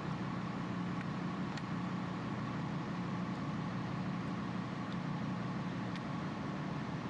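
Steady drone of a ship's engine-room machinery, a constant hum with a hiss over it, with a few faint clicks.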